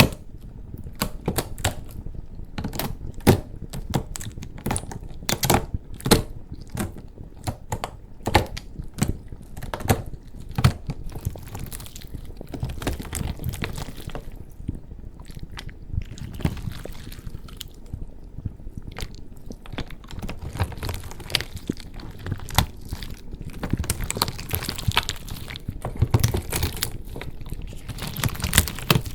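Slime ASMR: hands pressing and cracking a wax-coated slime keyboard, giving irregular sharp clicks and crisp crackling over a soft squishy rustle, denser in the second half.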